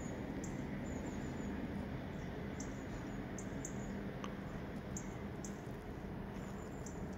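Steady low background hum with faint short high-pitched chirps or squeaks every so often.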